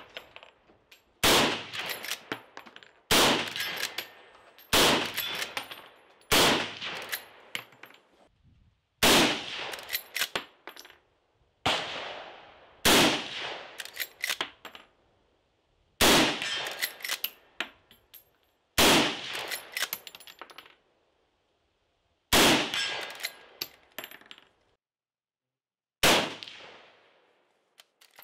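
Marlin 336 lever-action rifle in .30-30 firing about eleven shots, spaced one to four seconds apart. Each shot is followed by quieter metallic clacks as the lever is worked to chamber the next round.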